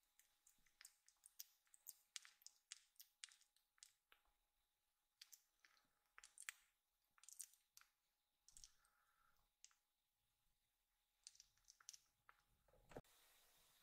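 Faint, irregular small wet clicks of a young kitten smacking and licking its lips, a few a second in loose clusters, dying out near the end.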